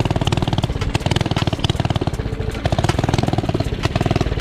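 Mini bike's small single-cylinder engine running under way, heard close up as a loud, fast, even firing pulse.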